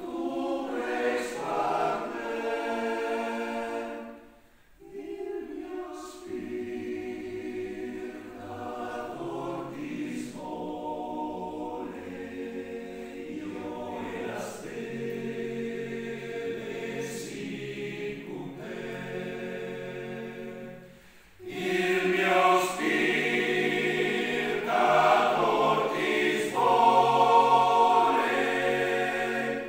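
Men's choir singing a cappella in several parts. The phrases break off briefly twice, and the singing is louder after the second break, over the last third.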